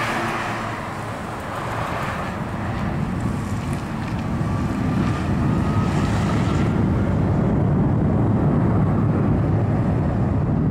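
Distant jet airliner engines, a low rumble that builds and grows louder partway through, with a faint whine rising in pitch in the middle. Wind buffets the microphone.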